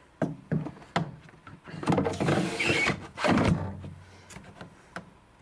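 Plastic panels of a condenser tumble dryer being handled. There are a few clicks, then a sliding scrape about two seconds in and a knock just after three seconds.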